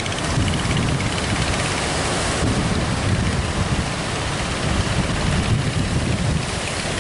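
Strong wind buffeting the microphone over the steady rush of heavy sea surf.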